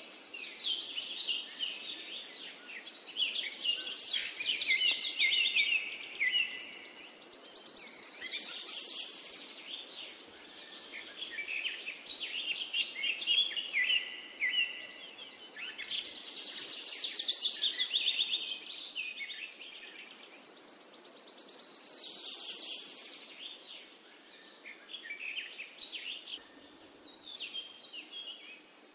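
A chorus of songbirds chirping and singing, many short quick notes and trills overlapping, with a high buzzy trill that swells up and fades away several times.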